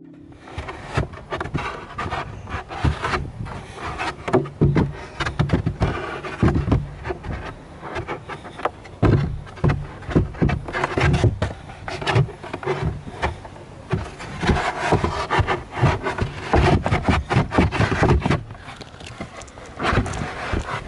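Camera or phone microphone handling noise: irregular rubbing, scraping and knocking as the device is moved about against the car's interior trim.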